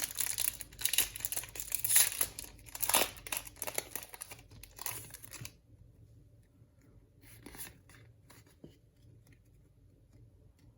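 A small trading card booster pack being torn open, its wrapper crinkling and crackling for about five seconds, then a few faint rustles.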